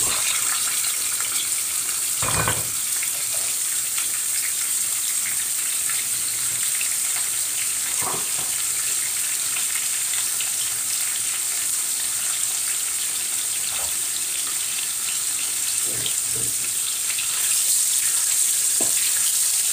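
Freshly washed chicken pieces sizzling in a steel pot of frying onions, a steady hiss, with a few knocks of a wooden spoon against the pot. The sizzle grows louder near the end as the pieces are stirred.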